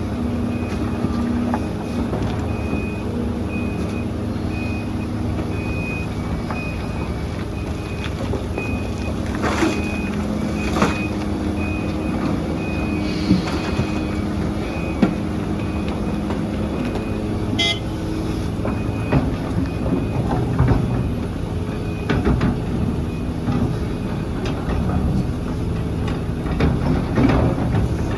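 Heavy diesel machinery running steadily while a reversing alarm beeps over it, a high-pitched beep about one and a half times a second that stops near the end. A few sharp metallic clanks come through the engine noise.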